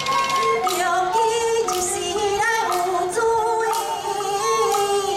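Live Taiwanese opera (gezaixi) music: a woman's drawn-out sung melody, without clear words, over the band's accompaniment, with a few sharp percussive strikes.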